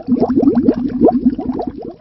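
Bubbles gurgling underwater in a dense stream, each bubble a short blip rising in pitch, several a second.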